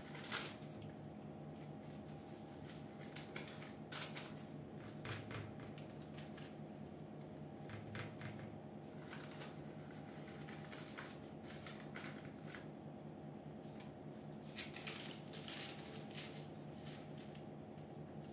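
Faint, scattered rustling and crinkling of baking paper and light taps on the oven tray as hands press minced-meat filling into pide dough, over a steady low hum.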